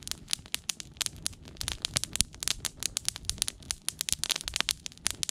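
Tinder nest of dry grass burning in open flame, crackling with many quick, irregular pops.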